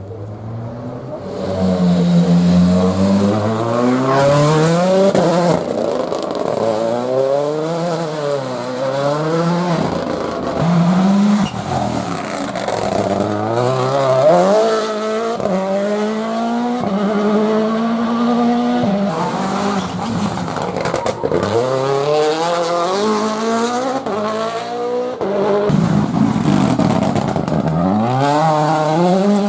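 Rally car engines driven flat out, revving hard and changing gear, the pitch climbing and dropping again and again.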